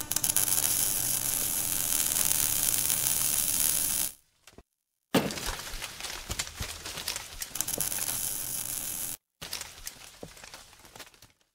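Crackling, shattering sound effects of an animated logo intro: about four seconds of dense crackle, then silence, a sudden hit about five seconds in followed by more crackling, and a last stretch of crackles that fades away near the end.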